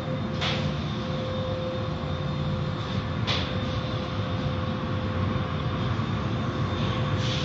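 Automatic car wash machinery running, heard from inside the car: a steady rumble of the rotating brushes and water spray with a steady hum. Short hissing bursts of spray come about half a second in, about three seconds in, and near the end.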